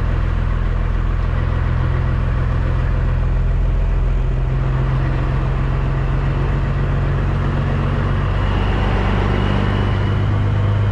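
A Peterbilt 379's CAT C15 straight-six diesel running at low speed under light load, heard from inside the cab as a steady low drone. Its note shifts slightly about eight seconds in.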